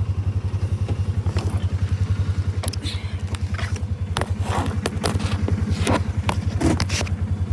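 A truck engine idling with a steady, rapid low pulsing, with a few clicks and scrapes over it in the middle and later part.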